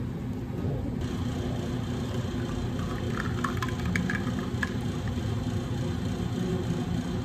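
Milk poured from a jug into a glass of iced espresso, a soft steady splash with a few ice cubes clinking in the middle, over a steady low machine hum.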